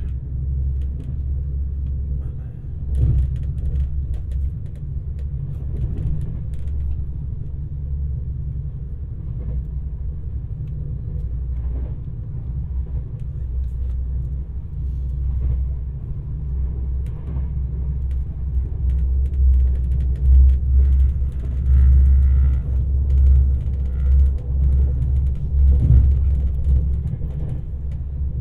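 Alfa Pendular Class 4000 electric tilting train running at speed, heard from inside the carriage: a steady low rumble of the wheels on the track that swells a little in the last third.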